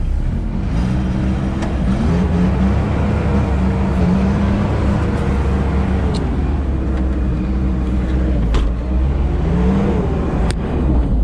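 Sherp amphibious ATV's diesel engine running under load as the vehicle drives onto river ice, its pitch rising and falling with the throttle. Four sharp knocks come through.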